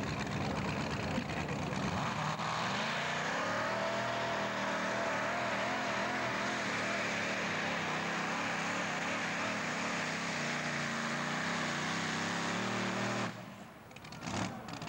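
Modified pulling tractor's racing engine revving up from the start line and running at high revs under full load through a pull, its pitch wavering. The sound drops away suddenly about a second before the end.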